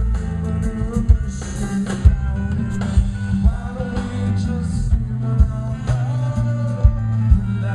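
Live rock band playing: drums, bass and guitar with singing.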